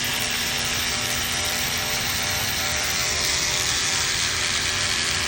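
Hercules cordless ratchet's motor running steadily under the trigger, sounding a little rough and not so good after being dumped in during a torture test.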